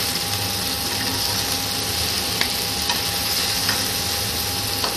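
Marinated chicken drumsticks sizzling steadily in butter on a hot ridged grill pan, with a few light clicks of metal tongs against the pan as the pieces are turned over.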